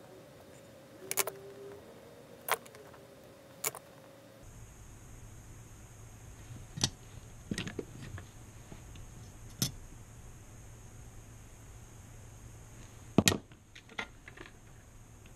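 Small metal tools, tweezers and a soldering iron tip, clicking and tapping against a metal PCB holder during hand soldering. There are about eight sharp ticks spaced a second or more apart, with the loudest near the end, over a faint steady hum.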